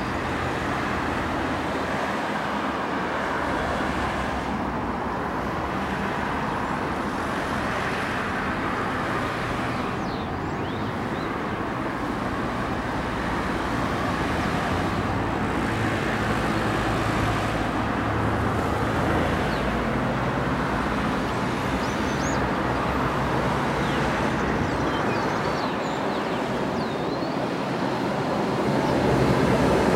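Road traffic: cars and vans driving past one after another in a steady stream of engine and tyre noise. Near the end a city bus comes past close, the loudest part.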